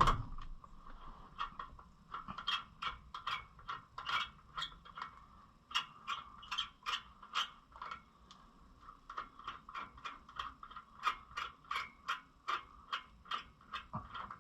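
Ratchet wrench worked in steady strokes, a long run of soft clicks at about two to three a second, during a pickup wheel swap.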